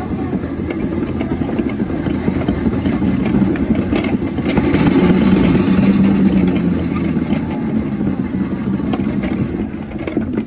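4-inch scale miniature steam traction engine running along under way, a steady mechanical running sound. It swells louder about halfway through with a brief rush of hiss, then eases off near the end.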